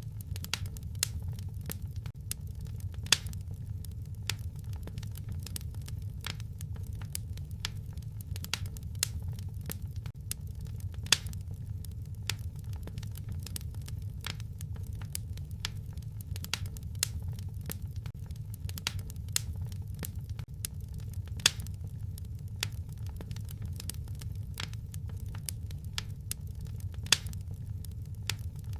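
Fireplace fire crackling: irregular sharp snaps and pops over a steady low rumble of the flames, with a handful of louder pops scattered through.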